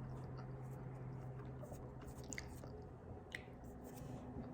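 Faint chewing, with a few soft mouth clicks, over a steady low hum.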